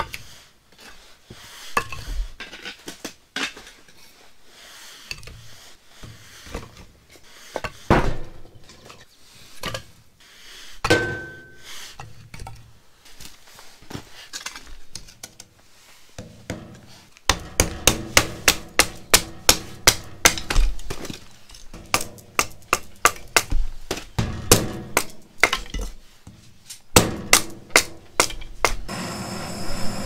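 Firewood being split into kindling with a blade: scattered knocks of wood on wood at first, then a quick run of sharp strokes, about three a second, for the second half. Near the end a butane gas torch starts hissing as it lights the kindling in the wood stove.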